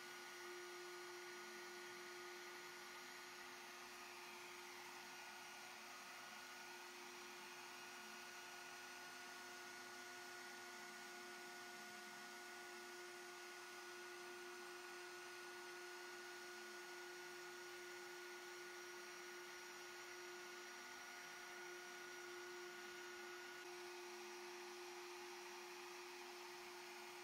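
Faint, steady whine of a CNC router spindle spinning a V-bit while it carves an inlay pocket in an end-grain cutting board.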